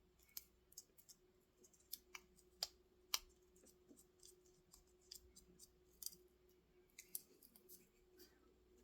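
Quiet, irregular small clicks and ticks of handling at a workbench, a dozen or so spread unevenly, over a faint steady hum.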